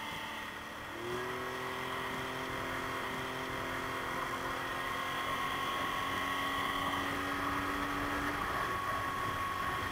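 Mercury tiller outboard motor throttled up about a second in, then running steadily at speed.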